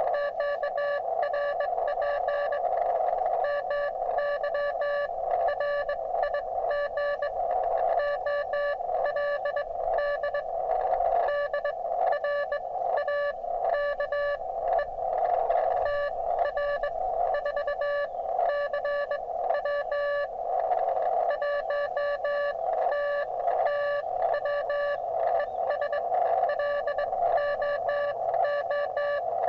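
Morse code (CW) received on a ham radio transceiver: a steady single-pitch tone keyed on and off in dots and dashes, over the hiss of the receiver's narrow passband. It is another station's reply, which decodes as "RR FB QRP MY RIG OLD DRAKE TR4CW 1TTW ES LOOP ANT".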